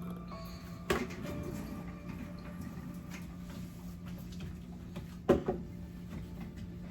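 A steady low hum with two sharp knocks, one about a second in and a louder one about five seconds in.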